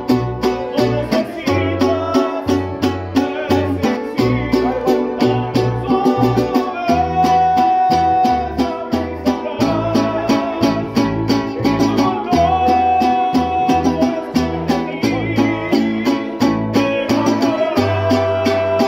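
Mariachi music: a man singing over violin and strummed plucked strings keeping a steady rhythm, with a bass line moving beneath.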